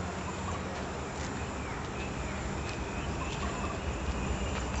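Outdoor ambience: a steady low rumble and hiss with a few faint bird chirps.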